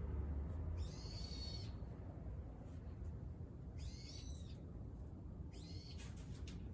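A bird calling three times, faint arched high-pitched calls about half a second each. A low hum stops about a second in.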